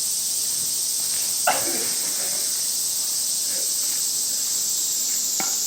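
Two sharp cracks of a softball bat meeting the ball, the first about a second and a half in with a short ringing tail, the second near the end, over a steady high-pitched hiss.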